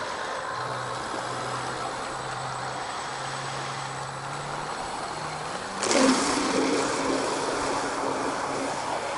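A radio-controlled catamaran boat's motor running slowly with a steady low hum. About six seconds in, the throttle opens: the pitch jumps up and the sound gets louder, with a rushing hiss of water as the boat speeds away.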